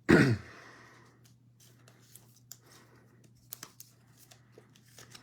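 A short, loud, low sound right at the start, then a cellophane card-pack wrapper being torn open with a brief crinkling rustle. Scattered light clicks and rustles follow as the cards are handled.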